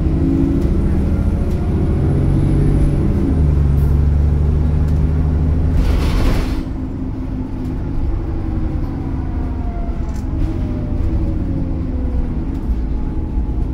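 ADL Enviro400 double-decker bus engine and gearbox heard from inside the upper deck, pulling strongly with a shift in engine pitch about three seconds in. About six seconds in comes a short hiss of air, then the engine quietens and a faint whine falls in pitch as the bus slows.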